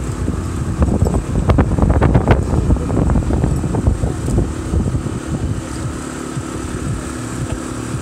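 Wind buffeting a phone's microphone: a loud, uneven rumble, with a flurry of sharper crackles between about one and a half and two and a half seconds in.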